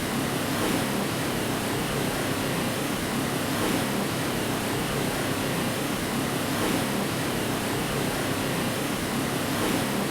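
Steady white noise for lulling a baby to sleep: an even, unbroken hiss with almost no deep bass.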